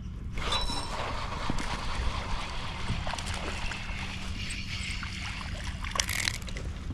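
Water splashing and trickling beside a fishing kayak, with a brief louder splash about six seconds in.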